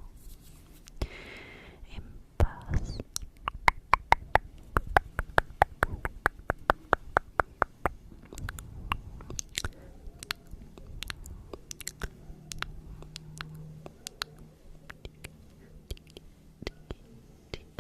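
ASMR mouth sounds: a long series of sharp, wet mouth clicks, densest and loudest from about four to eight seconds in at about five a second, then sparser.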